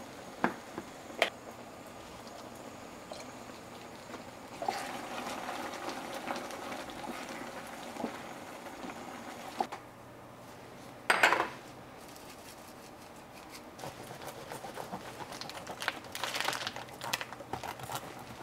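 Cream sauce and spaghetti simmering in a frying pan while being stirred with chopsticks. A couple of sharp clicks of the chopsticks against the pan come at the start, then a bubbling simmer lasts several seconds. About eleven seconds in there is one brief louder clatter, and near the end come scattered light clinks of dishes and utensils.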